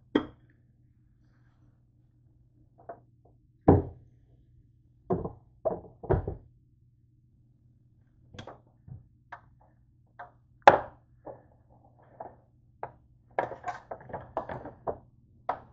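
A glass lid clanks onto a slow cooker's crock, followed by scattered clicks, knocks and rattles of electrical plugs and cords being pulled from and pushed into a wall outlet, with a dense run of small clatters near the end. A faint low hum sits underneath.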